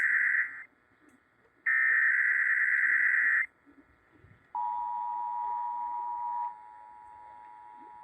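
Emergency Alert System SAME header: two screeching digital data bursts, each a little under two seconds and about a second apart. About four and a half seconds in the steady two-tone EAS attention signal starts, drops in level about two seconds later and carries on.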